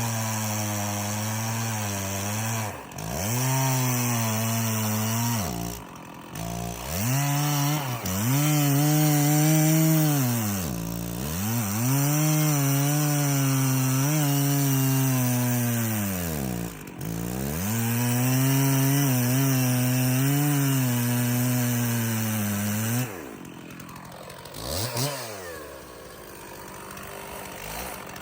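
Stihl 066 two-stroke chainsaw cutting into a red oak log. The engine pitch sags and recovers again and again as the chain bites. It drops back to idle about 23 seconds in, then revs up again near the end.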